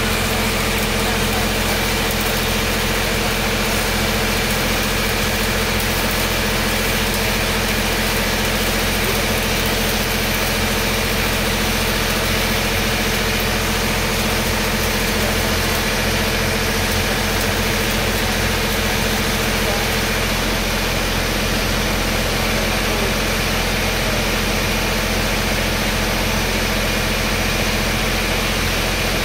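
A steady engine drone, like an engine-driven welding machine running, with the hiss and crackle of a stick-welding arc on a steel pipe joint over it.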